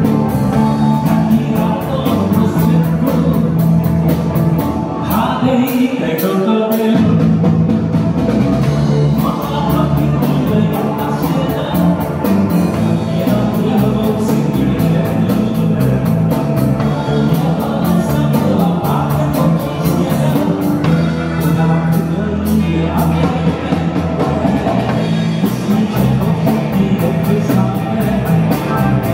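Live rock band playing: electric guitars, bass and drum kit. The bass and drums drop out briefly about six seconds in, then come back.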